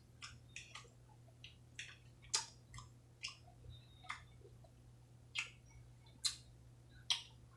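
Mouth noises of someone eating close to the microphone: a dozen or so short, wet smacks and clicks of chewing, spaced irregularly.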